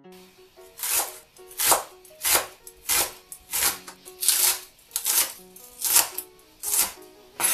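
Kitchen knife slicing a green onion on a wooden cutting board: a steady series of about ten cuts, roughly one and a half a second, each a crisp crunch ending in a knock of the blade on the board.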